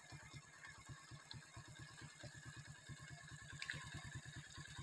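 Floodwater rushing across a submerged road, faint, with an even, rapid low fluttering of about ten pulses a second underneath.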